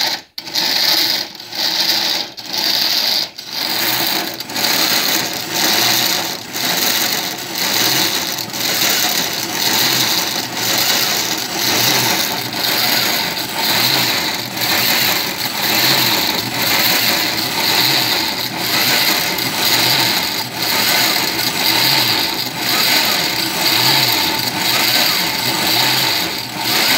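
Oster Pro 1200 blender running its pre-set Food Chop/Salsa program, its blades chopping tomatoes, onion and jalapeño in the glass jar. The motor starts and stops in short pulses about once a second at first, then runs on with a regular rise and fall about once a second as the program cycles.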